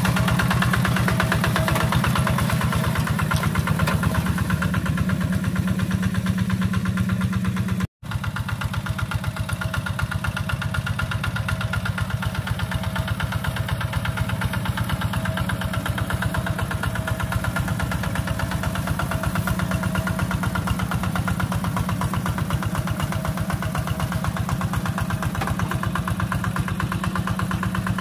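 Single-cylinder diesel engine of a Quick two-wheel hand tractor chugging steadily as it pulls a plow. The sound cuts out for a split second about eight seconds in.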